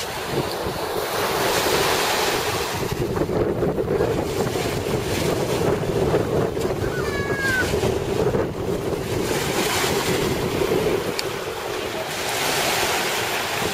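Small lake waves breaking and washing up a gravelly shore, swelling and easing, with wind rumbling on the microphone.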